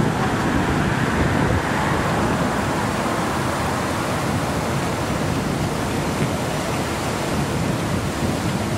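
Steady outdoor rushing noise of wind and street traffic on the microphone, with no distinct event.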